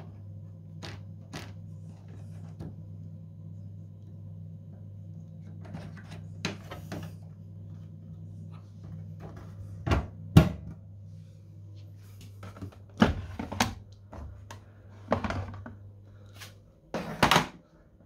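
Sharp plastic clicks and knocks from the washing machine's filter access flap and its drain hose being handled and the flap snapped shut. The loudest pair comes about ten seconds in, with more scattered clicks later. A steady low hum runs underneath.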